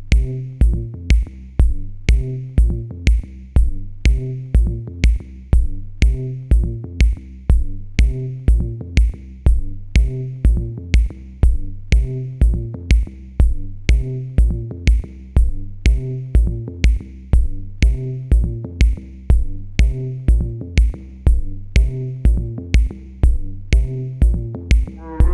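Electronic music with a drum-machine beat, about two kick-drum hits a second, over a repeating bass and synth line.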